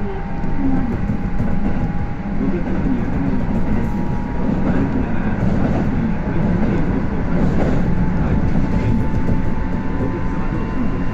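Inside a Kintetsu electric train with GTO-thyristor inverter control, running between stations: a steady rumble of wheels on rail, with faint steady motor tones on top that shift slightly partway through.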